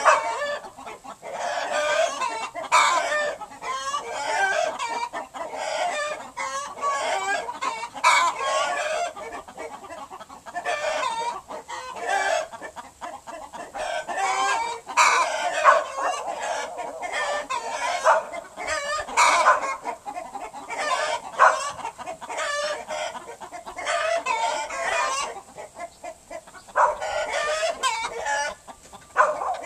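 Several chickens clucking continuously, with many short calls overlapping one another.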